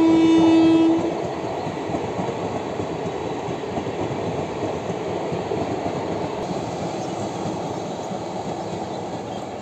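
An Indian Railways passenger train: a horn held on one steady note stops about a second in, then the steady noise of the coaches running over the rails carries on.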